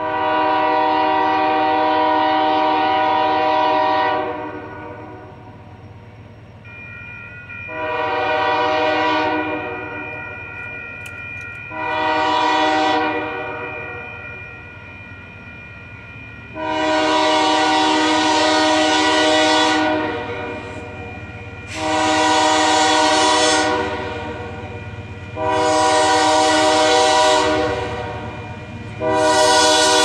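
Union Pacific locomotive air horn sounding seven blasts: a long one, two short, a long one, then three shorter ones, the last still sounding at the end, over the low rumble of the passing train.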